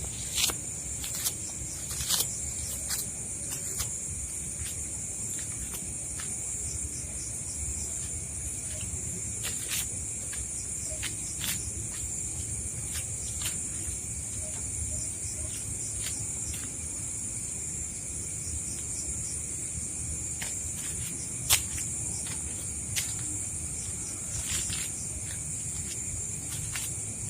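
Night insects, crickets, chirring in a steady high-pitched chorus, with a second, lower steady drone underneath. Scattered faint clicks and crackles come through it, one sharper click about three-quarters of the way through.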